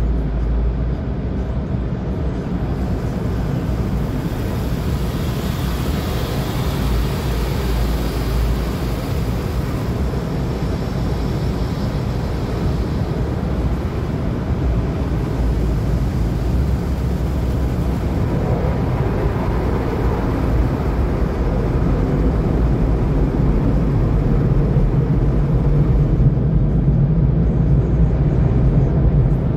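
Automatic tunnel car wash heard from inside the car: a steady rush and rumble of water spray and wash machinery working over the windshield and roof. Near the end it grows louder as the car passes under the dryer blowers.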